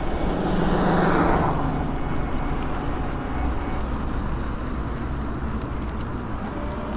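Road traffic heard from a moving e-bike: a vehicle passes about a second in, over steady road and wind noise.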